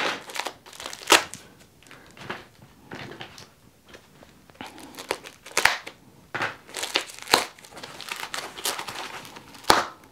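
Protective wrapping being pulled and crumpled off the arms of an office chair's control mechanism: irregular crinkling and rustling, with a few sharper crackles.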